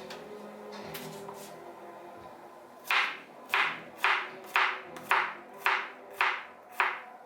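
A series of sharp slaps, about two a second, starting about three seconds in, over low background noise.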